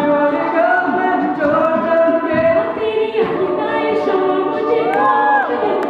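A cappella vocal group singing, a lead voice over layered backing voices with no instruments. About five seconds in, one voice swoops up to a high held note and slides back down.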